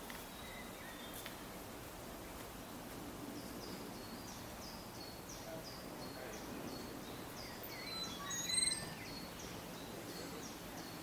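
Birdsong over steady outdoor background noise: a small bird repeating short high notes, about two or three a second, starting a few seconds in, with another bird's louder chirps briefly about eight seconds in.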